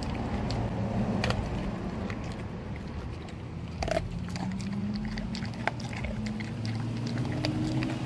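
Alaskan Malamute chewing a raw turkey wing, with irregular sharp crunches of bone cracking between its teeth.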